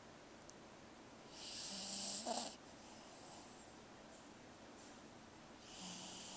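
A tired dog snoring in deep sleep. There are two snoring breaths: the louder one starts about a second and a half in, and a weaker one comes near the end.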